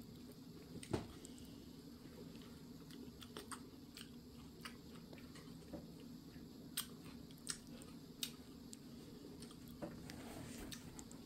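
Faint chewing and crunching of a lettuce wrap, with scattered small clicks and a soft knock about a second in.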